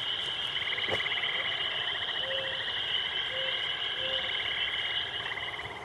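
A chorus of frogs trilling steadily in rapid pulses over a continuous high-pitched hum, with three short low calls about two, three and four seconds in. The chorus fades near the end.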